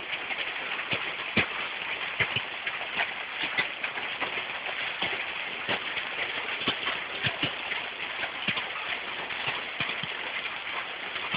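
Hail falling with rain: a steady hiss, with hailstones striking the ground and nearby hard surfaces in many irregular sharp knocks.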